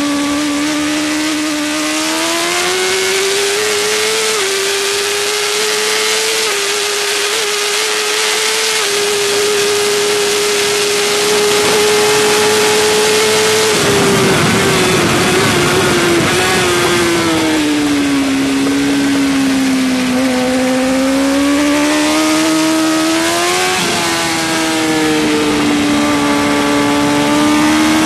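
Suzuki GSX-R1000 K5 superbike's inline-four engine at high revs, heard onboard from behind the screen. Its pitch climbs, with a short dip at a gear change about four seconds in, holds nearly steady for several seconds, falls away from about halfway as the bike slows, and then climbs again with another short dip near the end.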